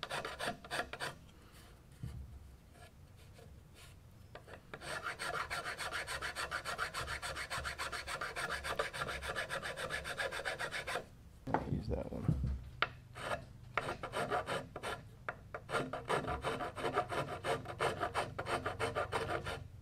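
Hand file rasping in quick back-and-forth strokes across the end of a brass threaded rod set into a wooden rifle stock, filing it down flush. The strokes stop for a few seconds about a second in, and briefly again past the middle.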